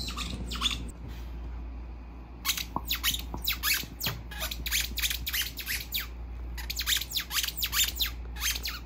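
A squeaky dog toy squeaked over and over as a dog chews it. The short, high squeaks come several a second, starting about two and a half seconds in.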